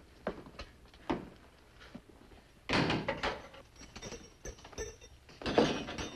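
A few soft steps, then a jail cell door clanging shut about three seconds in, followed by a faint metallic ring and a second metal rattle near the end as the cell is locked.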